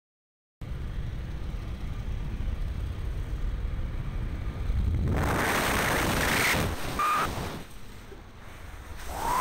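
Wind rushing over the microphone with the drone of a small aircraft's engine. It starts suddenly after a moment of silence and grows louder and hissier about five seconds in.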